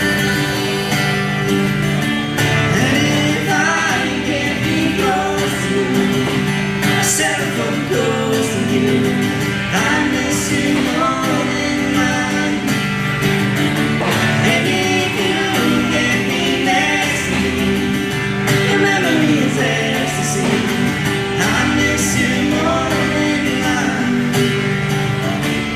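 Live band playing a country-style song, with a singing voice over guitar.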